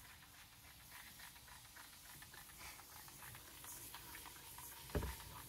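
Faint patter of water sprinkled from a small bottle onto a mycelium substrate block and its foil lining, a run of light irregular ticks. A single thump about five seconds in.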